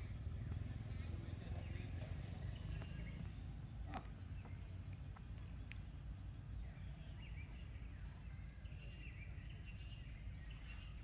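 Outdoor ambience: a steady high-pitched insect drone over a low rumble, with one sharp click about four seconds in and faint short chirps in the second half.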